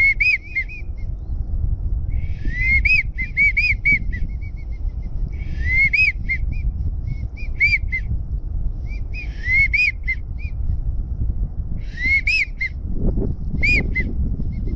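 Repeated groups of high whistled notes, each note rising and falling, about a second per group and a new group every two to three seconds: wigeon whistling. A low rumble of wind on the microphone lies underneath, swelling near the end.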